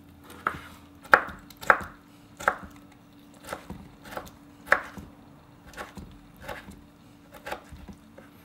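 A kitchen knife chopping preserved lemon rind on a wooden cutting board: a string of sharp, irregularly spaced knocks of blade on wood, about one or two a second.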